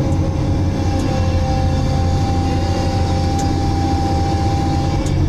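Diesel engine and hydraulics of a Multidocker log-handling machine running steadily under load while its grapple lowers a bundle of logs onto a timber trailer, a deep low rumble with a thin steady whine that stops just before the end.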